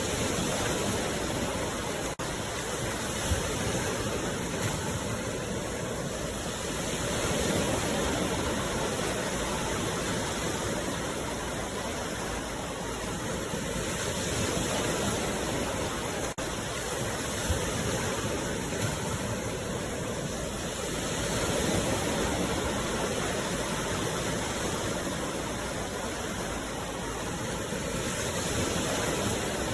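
Sea waves washing on the shore in a steady rush of water, swelling and easing about every seven seconds.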